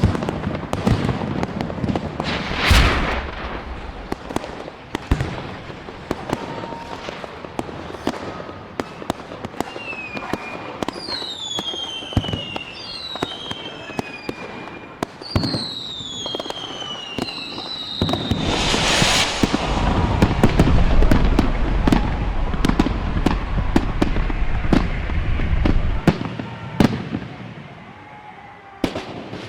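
Fireworks crackling and popping, with several whistles falling in pitch in the middle. Two big bursts, one about three seconds in and a louder one about two-thirds through, are followed by a low rumbling.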